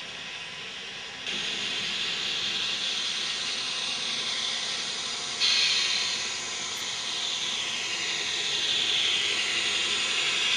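N scale model passenger train running on the layout's track: a steady hissing rush of wheels on rail and the small motor. It jumps abruptly louder twice, about a second in and about halfway, and faint falling whines come through in the second half.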